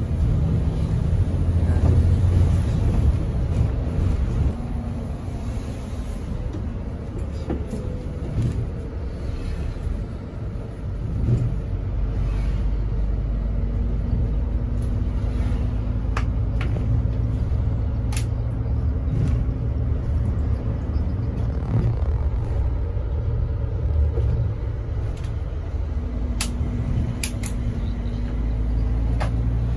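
Mercedes-Benz O500RS 1836 sleeper bus driving on the road: a steady low rumble of engine and tyres. A steady hum comes in about halfway and again near the end, and a few short rattles or clicks sound now and then.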